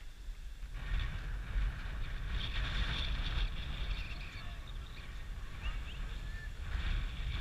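Wind buffeting the camera microphone, an uneven low rumble that swells about a second in, with a few faint distant shouts near the end.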